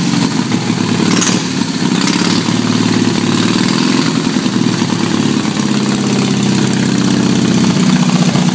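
A 1929 BMW R62's side-valve flat-twin engine idling steadily.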